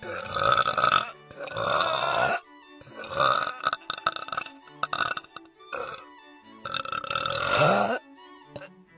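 A young woman burping several times in a row: long, loud, drawn-out burps, the longest near the end, with quiet background music between them.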